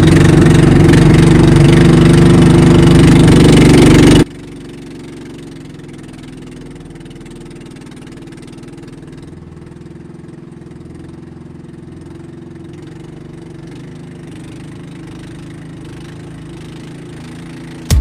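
Motorised bangka boat engine running steadily. It is loud for the first four seconds, then drops abruptly to a much quieter, even hum.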